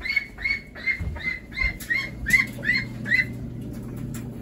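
A duckling peeping over and over, short high calls about three a second, stopping about three seconds in. A low steady hum comes in about two seconds in.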